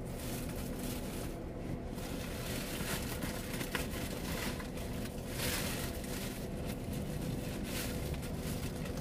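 Street traffic heard from inside a stopped car: a steady low engine hum, with motorcycles riding past, one close by near the middle.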